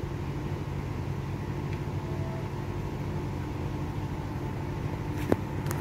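Steady low machine hum holding a few even tones, with a single sharp click a little past five seconds in.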